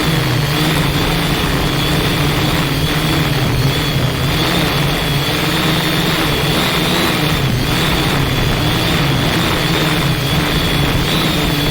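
A multirotor drone's electric motors and propellers running steadily in flight, giving a high whine that wavers slightly in pitch over heavy wind noise.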